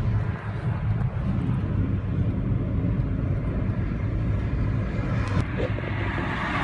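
Car engine and tyre noise heard from inside the cabin while driving, a steady low rumble.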